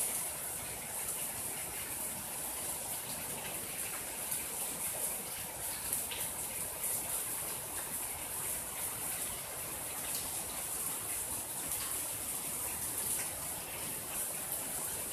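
Steady rain falling, an even hiss with a few louder single drops ticking through it.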